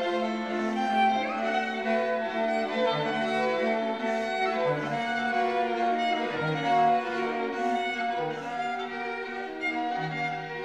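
A string trio of violin, viola and cello plays sustained, overlapping chords in contemporary chamber music. The harmony is jazz- and ambient-like, set in the quarter-tone system. A low cello note returns every second or two beneath held upper notes.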